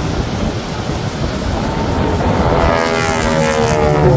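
Single-engine propeller aerobatic plane diving past: the engine and propeller drone comes in about halfway through and falls steadily in pitch as the plane passes.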